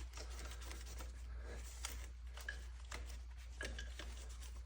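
A rag rubbing and wiping the brake-cleaned EGR cooler mounting surface on the engine: faint scuffing with a few light clicks.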